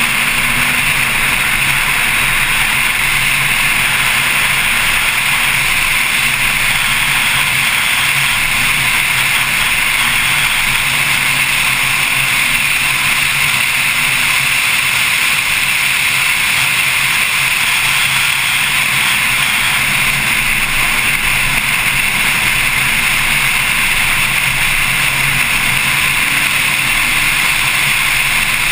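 Steady rush of wind and road noise at a hood-mounted camera on a Porsche Carrera S driven at track speed, with the car's engine faint beneath it.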